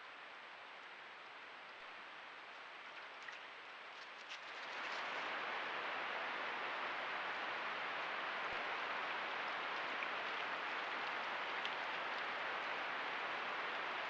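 Steady hiss of water picked up by a trail camera's microphone. It jumps louder about four and a half seconds in, with a few faint clicks just before.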